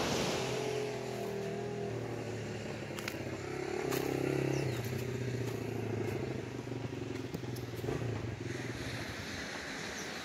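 An engine running steadily with a low, even hum that swells about four seconds in and eases off near the end, with a few light clicks over it.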